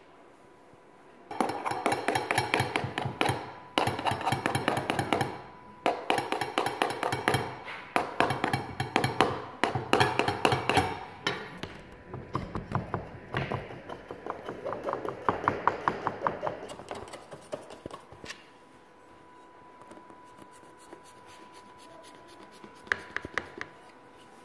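Quick runs of sharp tapping and clattering from a metal kitchen tool against a tray, in several bursts and softer after about twelve seconds in, over a faint steady electric tone.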